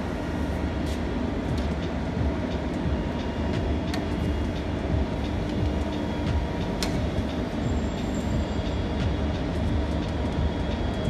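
Steady low rumbling background noise, like machinery running, with a few faint light clicks, the clearest about four and seven seconds in.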